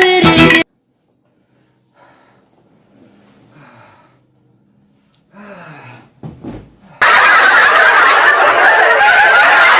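Background music cuts off suddenly just after the start, leaving a few seconds of near silence with faint short voice sounds. About seven seconds in, loud continuous laughter comes in, like a comedy laugh-track sound effect.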